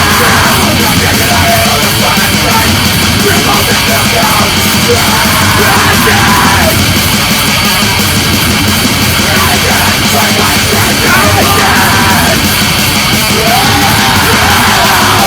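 Loud, dense heavy metal with yelled vocals.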